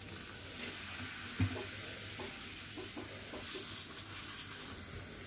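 Baking soda with lemon salt (citric acid) fizzing steadily as a drop of vinegar lands on it, a soft bubbling hiss from the reaction. A light knock about one and a half seconds in.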